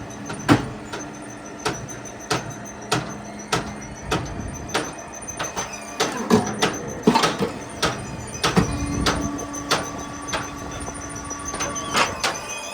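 Brick-making machine running: a steady motor hum under sharp, regular knocks about every 0.6 seconds. About six seconds in, the knocking grows louder and less even.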